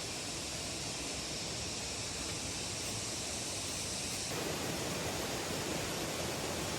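Steady rushing noise with no distinct events, shifting in character about four seconds in.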